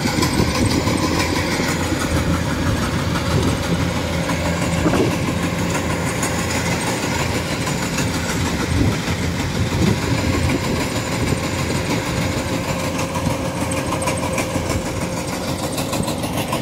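Kubota combine harvester running steadily as it cuts rice: a continuous engine and machinery drone with a thin steady whine over it.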